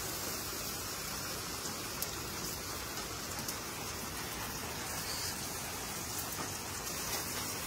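Steady rain falling, an even hiss with faint scattered drops and no change in strength.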